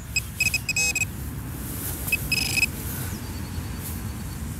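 Metal detector giving short, high-pitched beeps as it is swept over buried metal: a quick cluster in the first second and another pair around two seconds in, over a steady low rumble.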